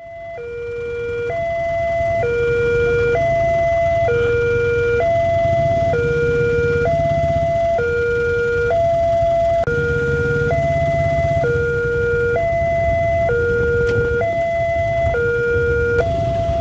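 Railway level-crossing warning alarm sounding its two-tone electronic signal, a higher and a lower tone alternating about once a second, warning that a train is coming. A steady low rumble runs underneath.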